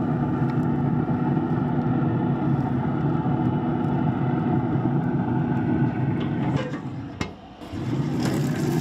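A steady mechanical hum that dips briefly near the end around a single sharp click.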